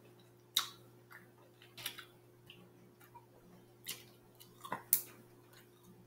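Scattered small clicks and snaps of seafood shells being picked apart by hand, about a dozen irregular ticks with the sharpest snap about five seconds in.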